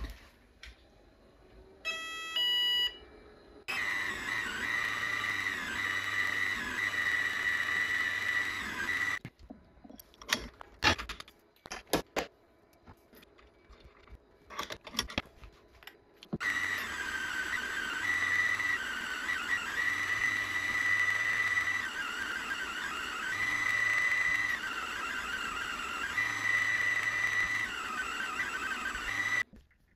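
Proxxon MF70 mini mill spindle running with a steady high whine while drilling holes in a small metal part, the tone wavering as the drill cuts. A few short electronic beeps come before it starts. In the middle the motor is off and there are sharp clicks and knocks as the rotary table is turned to the next hole position.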